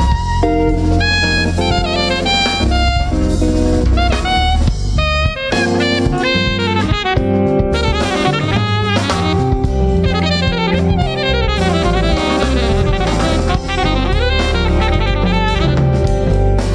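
Live jazz quartet playing: saxophone leads over drum kit, electric bass and electric guitar. The lines move from held notes into fast runs about halfway through.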